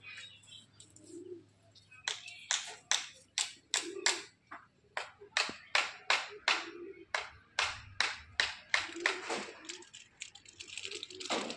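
A quick run of sharp taps, about two to three a second, starting about two seconds in and continuing to near the end.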